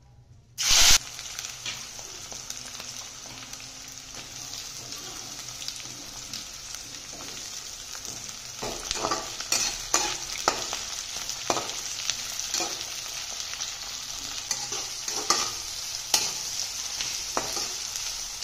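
Sliced onions frying in hot oil in a metal kadai, with a steady sizzle that flares loudly a little under a second in. A metal spatula stirs and scrapes them, clinking against the pan more and more often through the second half.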